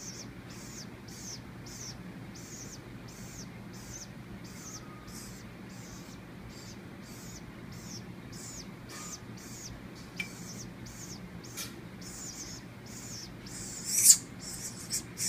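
Baby woodpecker begging: a short, high, hissing call repeated about three times every two seconds. A few sharp clicks come after the middle, and a louder burst comes near the end.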